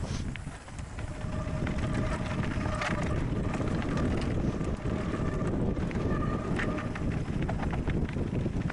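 Mountain bike descending a bumpy dirt and gravel trail, heard from the bike: wind buffeting the microphone and tyres rumbling over the ground, with frequent clicks and rattles from the bike and loose stones over the bumps.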